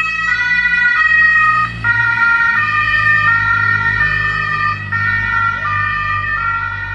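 Croatian police sirens from several vehicles sounding together, each stepping back and forth between a high and a low note, out of step with one another, over a low engine hum. Slightly quieter near the end.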